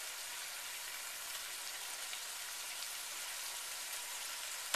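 Browned sausage and ground beef sizzling steadily in a stainless steel pot, a fine crackle with small pops, and one light knock near the end.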